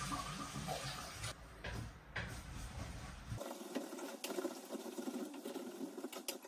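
White wine poured into a hot pot of browned soup vegetables (potatoes, onions, cauliflower), sizzling and bubbling as it deglazes the browned residue on the bottom, with many small crackling pops.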